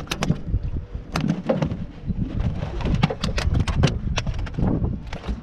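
Scattered knocks, taps and rustles of a flathead being gripped in a towel and lifted out of a landing net on a boat deck. The clicks come thickest about three to four seconds in.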